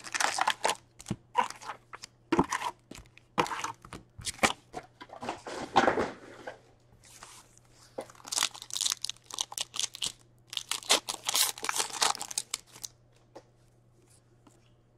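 Hockey card packs being torn open by hand: plastic and foil wrappers crinkling and tearing in short, irregular bursts.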